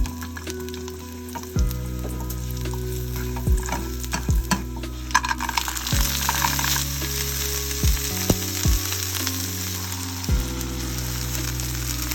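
Food frying and sizzling in a pan, with stirring and scattered clinks of a utensil against the pan; the sizzle swells about halfway through.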